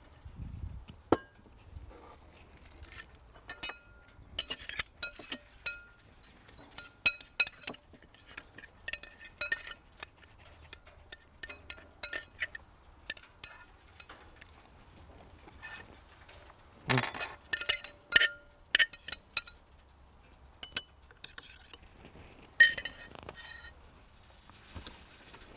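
Irregular clinks of a utensil against a bowl as a vinaigrette is mixed, each with a brief ring, with a louder clatter about seventeen seconds in and a sharp strike a few seconds later.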